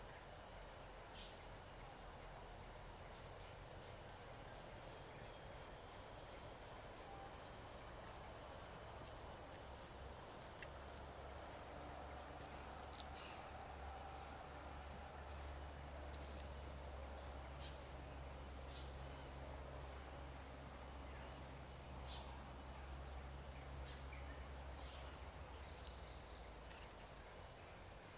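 Insects trilling in a steady, high-pitched chorus, with a run of short sharp ticks about a third of the way through.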